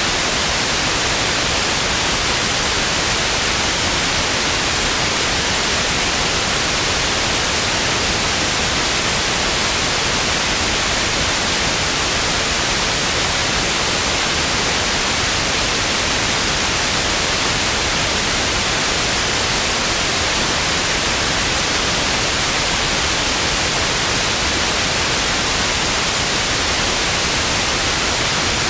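TV static: a steady, loud, even hiss, strongest in the upper range, unchanging throughout.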